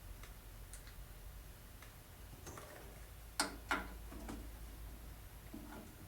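Scattered light taps and clicks of tools and metal parts being handled, with two sharper metallic clinks about three and a half seconds in, over a low steady hum.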